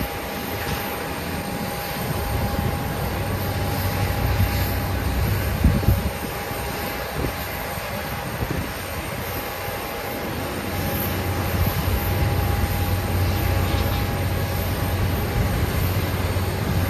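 Airliner jet engines running on the airfield: a steady low rumble with a constant whine over it. A couple of short thumps come about six seconds in.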